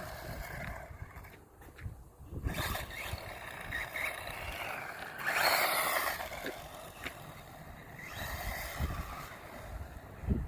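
Electric RC car driving past several times, its motor whine and tyre noise swelling and fading away, loudest about halfway through.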